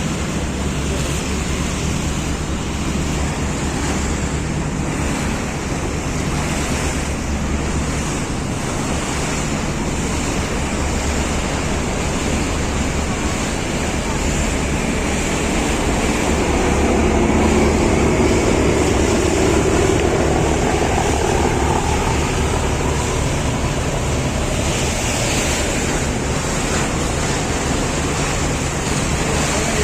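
River passenger launch under way: water rushing past the hull and wind on the microphone over the steady low drone of the engines, the rush swelling a little about two-thirds of the way through.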